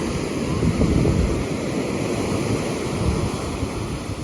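Ocean surf breaking and washing ashore, with wind buffeting the microphone.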